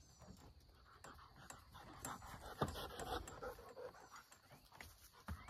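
A dog panting close by, with a few sharp clicks from the wire fence panel being handled.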